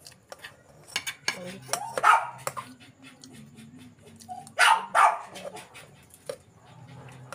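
A dog barking: a short bark about two seconds in and a quick pair near five seconds, over small clinks of spoons and hands on bowls.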